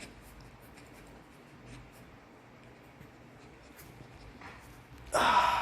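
A bottle of cough syrup being shaken by hand, heard only as faint, irregular small clicks and rattles, then a sudden short loud burst about five seconds in.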